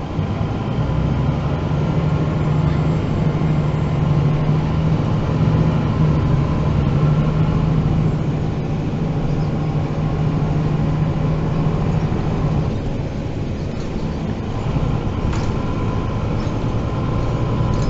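Diesel engine of a MAN NG 313 articulated city bus, heard from on board while driving, running steadily with a strong low hum. About two-thirds of the way through the engine note eases off and dips, then picks up again at a slightly lower pitch near the end.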